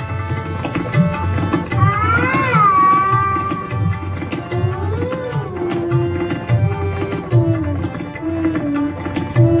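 A girl singing a devotional bhajan to tabla accompaniment, with a long ornamented run of gliding notes about two seconds in, then held, wavering notes over steady tabla strokes.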